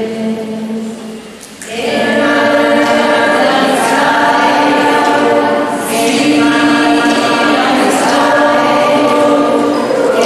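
School choir singing long held notes. It is softer at first, then swells to full voice about two seconds in.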